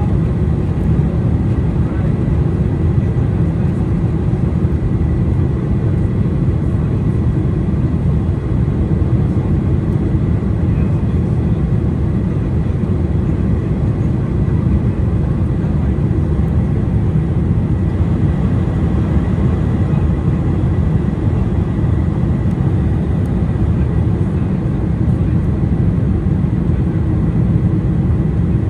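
Boeing 747-400 passenger cabin noise: a loud, steady rush of engine and airflow noise, heaviest in the low end, with a faint steady high tone.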